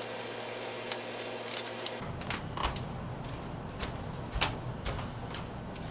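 Light scattered clicks, taps and scrapes of a small wooden stick working two-part filler into a wooden tool handle, starting about a second in, over a steady low hum.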